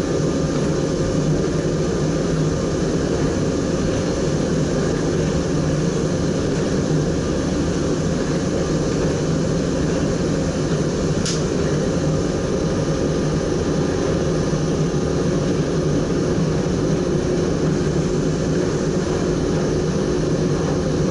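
Steady running noise inside the cab of an SGM Sprinter electric multiple unit travelling at speed: an even low rumble with a few faint steady tones. A single short high click sounds about eleven seconds in.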